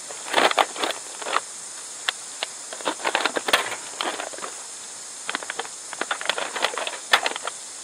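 Vegetables being put into a hangi cage on top of the cabbage-wrapped meat: clusters of short knocks, taps and rustles from handling, over a steady high hiss.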